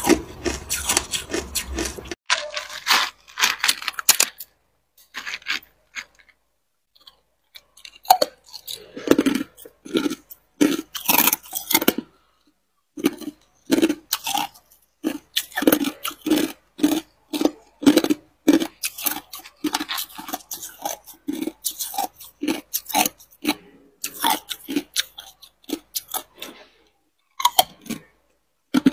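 Hard ice being crunched and chewed close to a microphone: sharp cracking bites, a few seconds of near silence about five seconds in, then steady chewing about twice a second.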